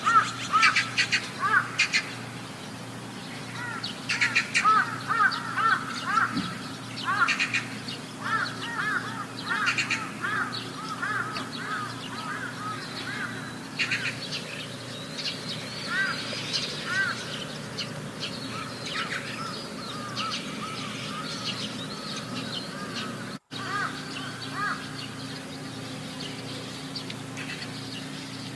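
A chorus of short, repeated animal calls, each rising and falling in pitch, overlapping from several callers, busiest in the first half and thinning out later.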